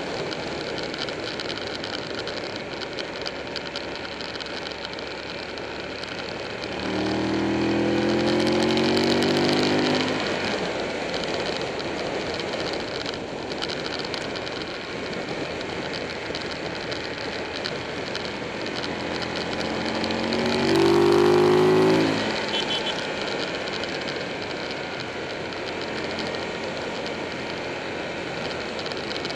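Buell 1125R's V-twin engine running at speed under a steady rush of wind noise. Twice, about seven seconds in and again about twenty seconds in, it accelerates with a rising engine note, the second pull briefly the loudest.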